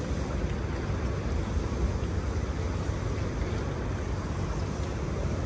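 Steady outdoor ambience: a low, flickering rumble of wind on the microphone over a faint haze of distant city noise.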